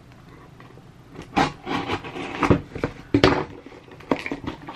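Cardboard shipping box being opened by hand: a string of rustles, scrapes and sharper tearing sounds of cardboard and packing starting about a second in.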